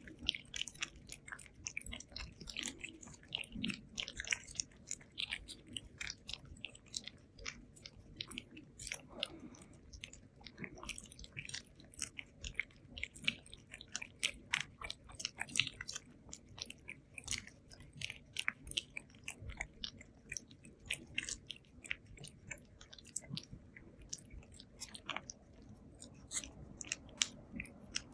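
Two ragdoll cats licking a paste treat from a squeeze pouch held in a hand: a quick, continuous run of wet licking clicks.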